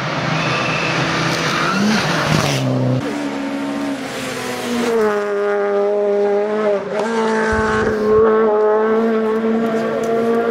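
Rally cars at full throttle one after another: first an engine revving up and changing gear, then, after a change about three seconds in, a second car's engine held at a steady high note with small wobbles as it slides through a tight hairpin.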